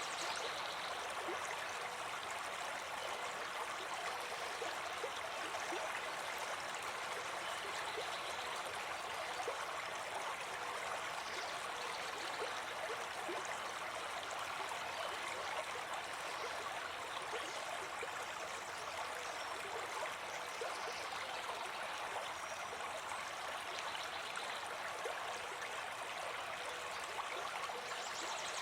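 Brook babbling and gurgling steadily over stones, an even rush of running water with no change.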